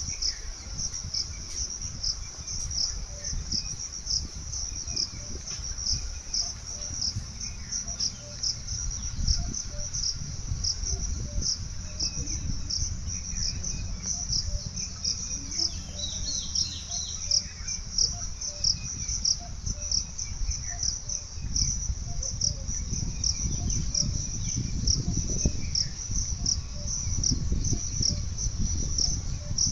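Insects chirping steadily in a high, even pulse, a few pulses a second, with faint bird calls now and then and a low rumble underneath.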